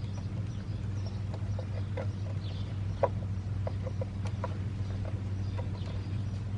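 Scattered faint clicks and taps of hands fitting a wire or cable behind a motorcycle's frame, over a steady low hum.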